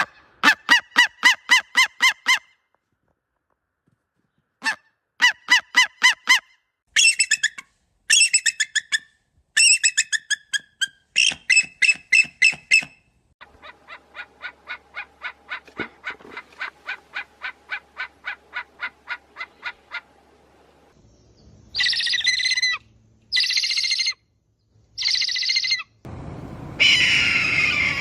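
Eagle calls: several runs of rapid, high chittering notes, then a quieter, slower series of pulsed calls. Near the end come three short harsh screeches and a longer, rougher scream.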